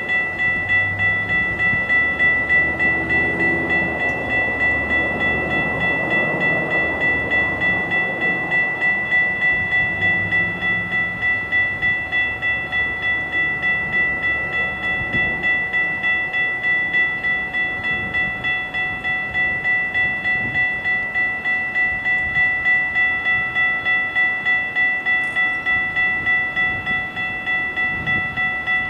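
A railroad warning bell ringing in rapid, even strokes, with a low rumble of train cars rolling slowly nearer during the first third.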